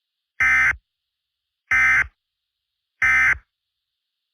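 Emergency Alert System end-of-message code: three short, identical bursts of SAME digital data tones, each under half a second and about a second and a third apart, marking the end of the alert.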